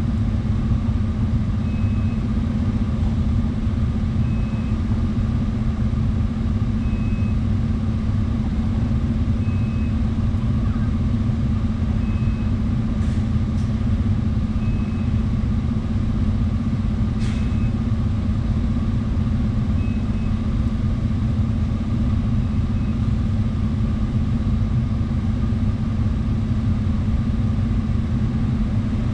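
Scania bus engine idling steadily at a standstill, with a short high beep repeating about every two and a half seconds and a few faint clicks midway.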